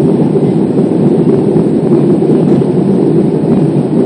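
Airbus A320 cabin noise during the climb after takeoff, heard from a window seat: a steady, loud rumble of the jet engines and rushing air, heaviest in the low and middle range.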